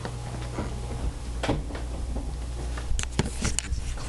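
A steady low electrical hum with scattered light clicks and taps over it.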